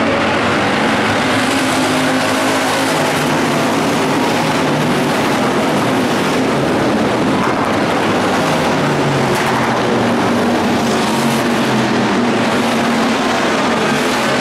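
A field of IMCA Hobby Stock race cars running together at racing speed on a dirt oval: a loud, steady mix of many engines at once.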